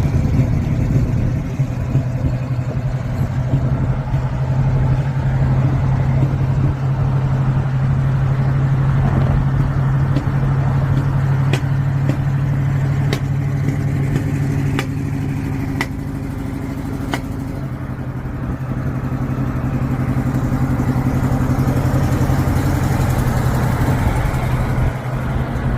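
Classic Chevrolet Camaro SS V8 running in traffic with a steady low drone. A few sharp clicks, about a second apart, come in the middle.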